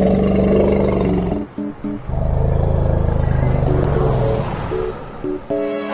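Background music with short melodic notes over a loud, low rumble. The rumble breaks off about one and a half seconds in, returns about half a second later and fades in the second half.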